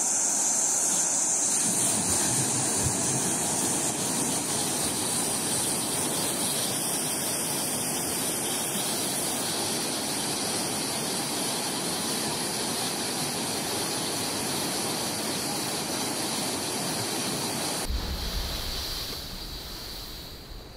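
Muddy flash-flood water rushing down a wadi and pouring over a stone weir, a steady roar of water. About three seconds before the end it cuts to a lower rumble of wind on the microphone and storm surf.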